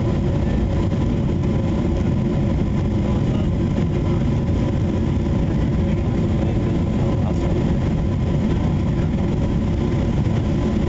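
Steady cabin noise inside a Boeing 777 on final approach: a constant low rumble of the engines and airflow over the wing, with faint steady engine tones above it.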